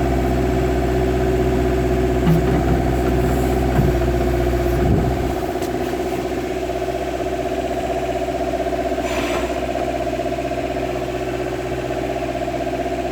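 Kubota KH-90 excavator's diesel engine running steadily, with a heavier low rumble and a few knocks for the first five seconds before it settles to a lighter, even run.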